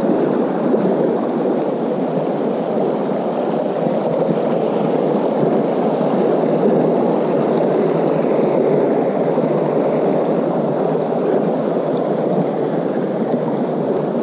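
A small mountain creek rushing steadily, a constant loud wash of water.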